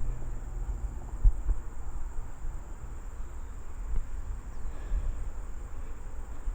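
Low rumbling handling noise from a carried camera during an uphill walk, with a couple of soft thumps, under a faint steady high-pitched insect drone.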